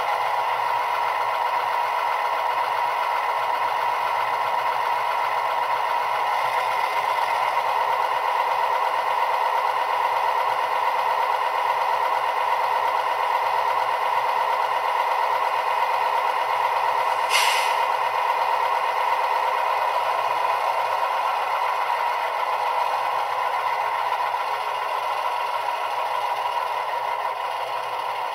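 Model ALCO diesel locomotive's sound decoder (Soundtraxx Tsunami2) playing a steady engine idle through a tiny ESU sugar cube speaker, thin and without bass. A short hiss of air comes partway through.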